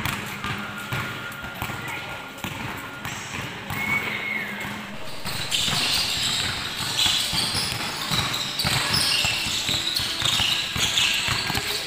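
Several basketballs bounced on a court floor as children dribble them, an irregular run of overlapping thuds.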